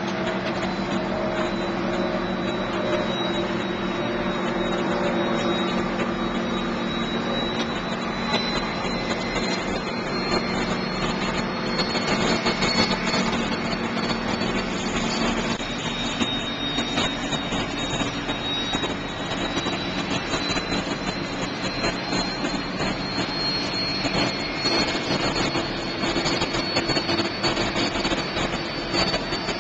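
Steady mechanical drone with a faint high whine drifting slowly in pitch, from the machinery of a Type 23 frigate passing close by.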